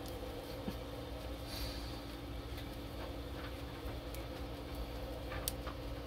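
Dry, stale bread buns being torn into pieces by hand over a slow-cooker crock: faint scattered crackles and rustles with a few small clicks, over a steady low hum.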